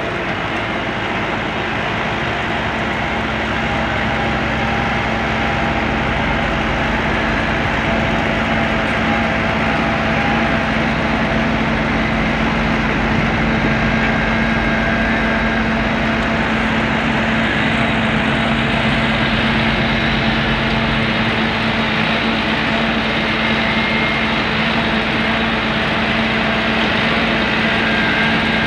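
Diesel engine of an asphalt paver running steadily, with a constant hum. The deep low rumble eases about three-quarters of the way through.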